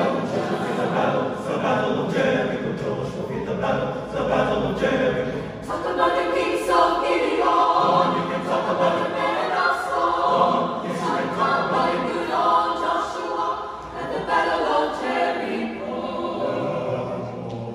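Mixed choir of men and women singing sacred music a cappella in several parts, growing a little softer near the end.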